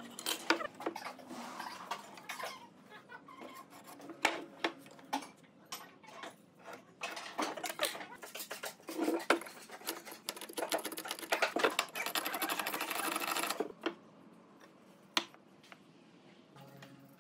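Tools working hardwood: irregular sharp clicks and knocks, with about three seconds of steady scraping noise past the middle.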